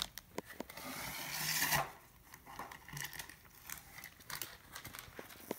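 Packaging being handled on a wooden table: a rustle lasting about a second, then scattered light taps and clicks as packets of fishing hooks are moved and set down.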